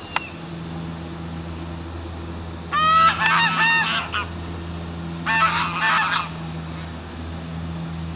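A flock of white domestic geese honking in two loud bursts, the first about three seconds in and the second about five seconds in, over a steady low hum.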